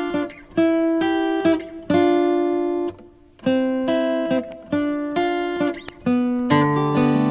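Background music: a guitar playing a slow melody of single plucked notes, each left to ring and fade. A fuller, lower chord comes in near the end.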